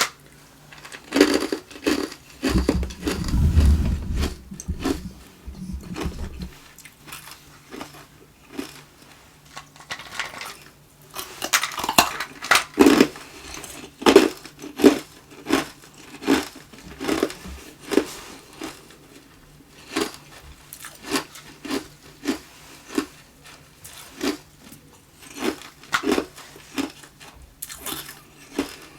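Hard tube ice being bitten and chewed close to the microphone: loud, sharp crunches, settling into a steady chewing rhythm of about one to two crunches a second. A low rumble runs under the crunches for a few seconds about three seconds in.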